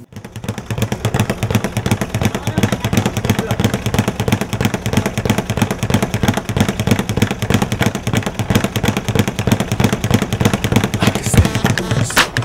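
A rapid, even rattle of sharp strikes, roughly ten a second, with a couple of louder hits near the end.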